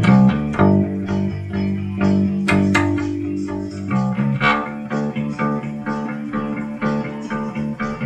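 Bass guitar playing a rock song's bass line in sustained low notes, over a band backing with plucked electric guitars.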